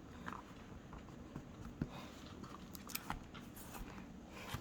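Faint handling of paper pages: scattered light rustles and a few small ticks and taps.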